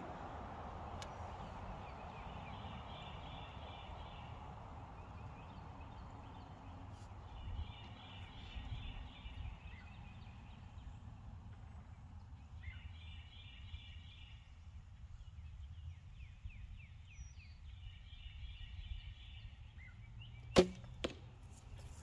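Outdoor background with a small bird's dry trill repeating every few seconds. Near the end comes a longbow shot: one loud sharp snap of the string, then a softer knock about half a second later as the arrow strikes the target.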